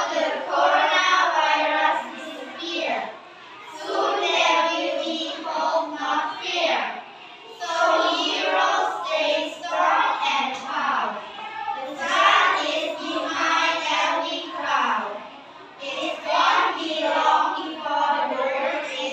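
A group of children reciting a text together in unison, a choral reading with a sing-song lilt, in phrases of a few seconds each separated by short pauses.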